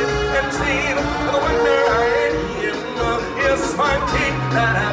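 Music with a singing voice over sustained accompaniment.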